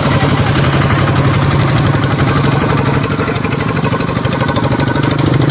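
An engine idling steadily at a close, loud level, with an even low rumble throughout.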